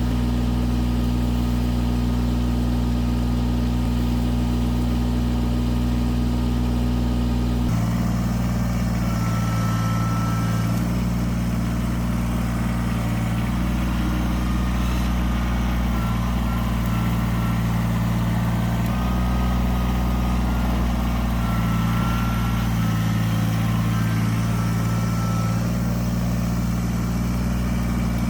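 Kubota BX23 compact tractor's three-cylinder diesel engine running steadily, its note shifting about eight seconds in and then every few seconds after as the tractor works, with a few brief faint whines.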